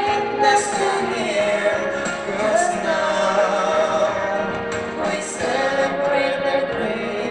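A song with singing voices holding and bending long notes over a full instrumental accompaniment.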